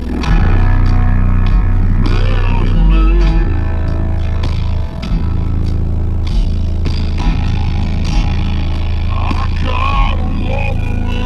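Guitar-driven music played loud through a car audio system, with strong, sustained subwoofer bass notes that change pitch every second or so.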